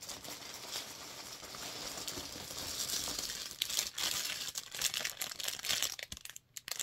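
Clear plastic packaging bag crinkling and crackling as it is handled, a continuous rustle full of small crackles that thins out near the end.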